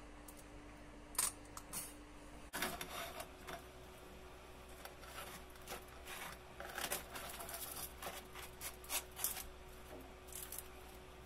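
A knife cutting through a toasted-bread sandwich on a plate: a run of irregular crisp crunches and scrapes after a sharp click or two about a second in.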